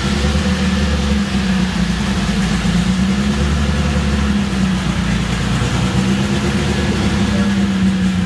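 The turbocharged, methanol-fuelled 2.0 four-cylinder engine of a 1987 Volkswagen Jetta drag car, running steadily at an even speed without revving.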